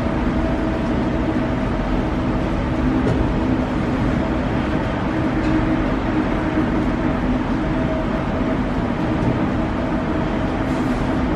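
Moving walkway running, a steady mechanical hum with a few steady droning tones.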